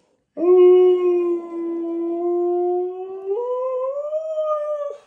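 A husky giving one long howl, held level at first, then stepping up in pitch about three seconds in and rising slightly toward the end.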